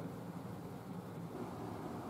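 Pickup truck engine idling steadily, a low, even sound with no revving.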